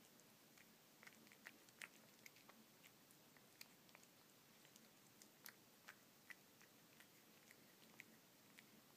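A cat chewing and licking up wet canned tuna: faint, irregular wet smacks and clicks from its mouth and tongue.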